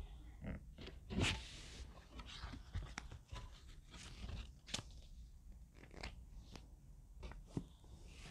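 Cardboard packaging and paper inserts being handled: faint rustling and crinkling with scattered light taps, and a louder rustle about a second in.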